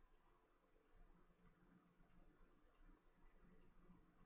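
Faint computer mouse clicks, about six of them spaced roughly half a second to a second apart, each a quick double tick, against near silence.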